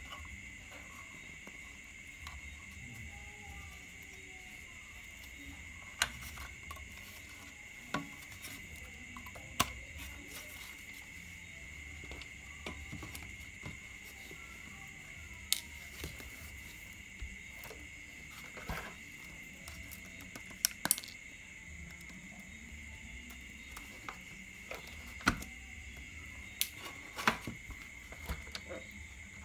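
Irregular sharp clicks and knocks of hard plastic parts of an RC dump truck being handled and taken apart, about a dozen in all. Under them runs a steady high chirring drone of crickets.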